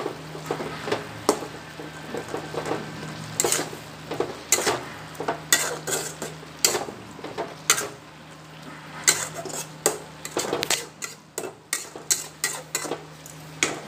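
A metal spatula scraping and clinking against an aluminium kadai as radish leaves with tomato and garlic are stirred while frying, with a light sizzle underneath. The strokes come irregularly, several a second, easing off for a moment near the end.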